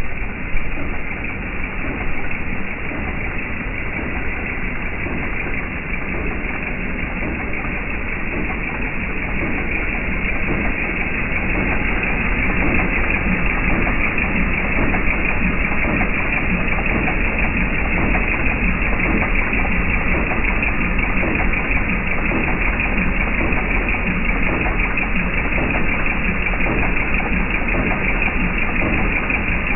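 Jeep Wrangler TJ's 4.0-litre inline-six engine running steadily, a little louder from about eleven seconds in, with the knocking noise the owner is trying to track down.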